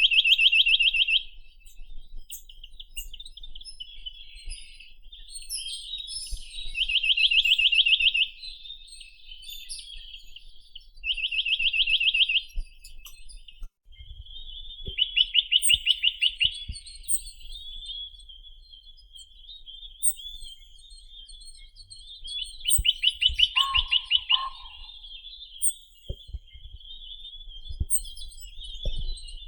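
Chinese nuthatch singing: a fast, even trill of a second or so, given about five times, with softer twittering between the trills.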